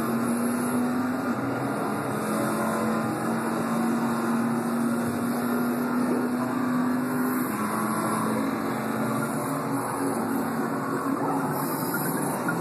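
Soundtrack of a video installation: a car engine droning steadily at an even pitch, with road noise, played back through speakers.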